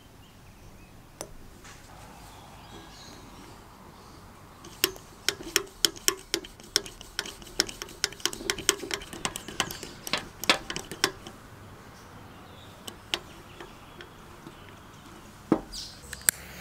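Small brass blowtorch fittings being handled and screwed together by hand: a fast run of sharp metallic clicks and taps through the middle, with a few single clicks before and near the end.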